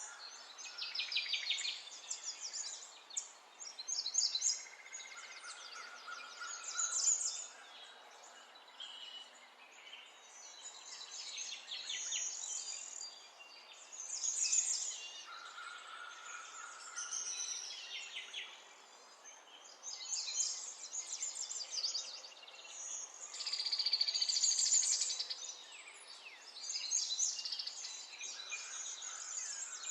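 Birds singing, a run of quick high trills and chirps in phrases every couple of seconds, over a steady faint hiss.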